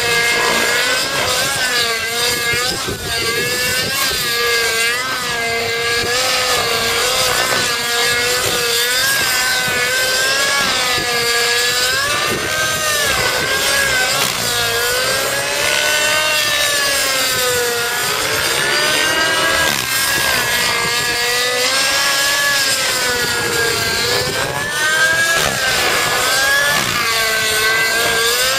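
Thunder Tiger Titan X50 electric RC helicopter flying 3D aerobatics: a steady rotor and motor whine whose pitch swings up and down again and again as it flips and passes.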